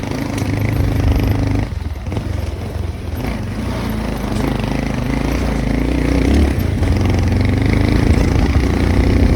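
Motorcycle engine running steadily while ridden on a rough dirt track. The engine note dips briefly about two seconds in, then picks up again and rises a little toward the end.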